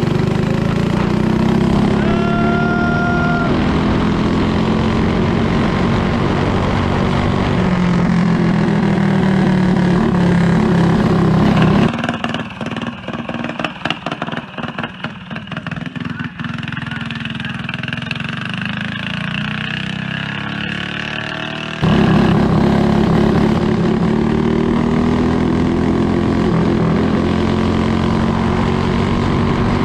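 A Briggs & Stratton go-kart racing engine running hard under throttle on a high-speed run, its note climbing for a few seconds before about twelve seconds in. From about twelve seconds in, the engine sound suddenly drops and turns choppy and fluttering, then comes back at full strength about ten seconds later. A short steady beep sounds about two seconds in.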